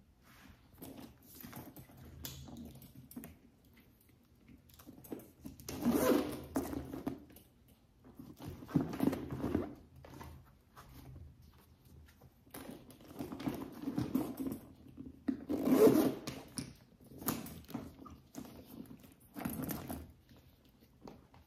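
Handling noise from a coated-canvas and leather satchel: irregular rustling bursts as the bag is moved about, its top zipper drawn open and later shut, loudest about six and sixteen seconds in.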